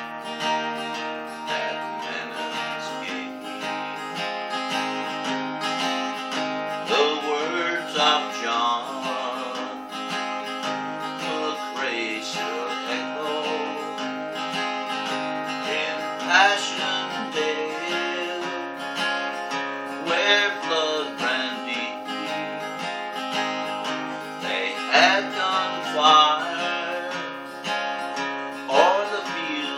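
Steel-string acoustic guitar strummed and picked in an instrumental passage between sung verses of a slow folk ballad.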